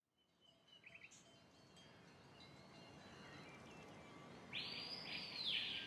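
Faint outdoor ambience with a few distant bird chirps, then a bird's trilling call about four and a half seconds in.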